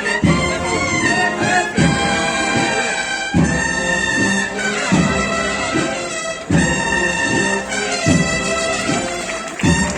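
Brass band with drums playing a slow processional march: trumpets and trombones carry a sustained melody over a heavy drum stroke about every second and a half.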